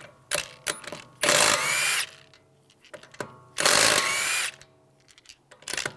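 Cordless power wrench with a 19mm socket spinning lug bolts out of a wheel hub: two short bursts of about a second each, the motor whine rising as it spins up, with small metallic clicks of the socket and bolts in between.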